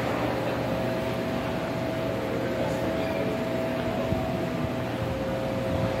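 Steady mechanical hum of building machinery, with two steady mid-pitched tones held in it and a low drone underneath.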